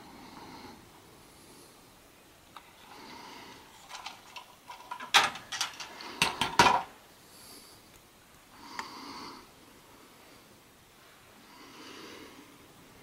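A person breathing heavily close to the microphone, slow noisy breaths every few seconds, with a quick run of sharp clicks and knocks between about four and seven seconds in, the loudest part.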